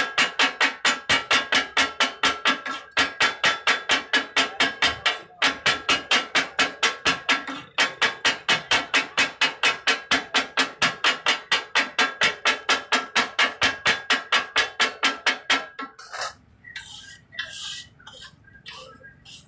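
Metal spatulas striking a flat iron tawa in a fast, steady rhythm of about four ringing clangs a second, the tawa-fry chopping and mixing of kaleji masala, with brief breaks. The clanging stops about 16 seconds in, leaving a few scattered clinks.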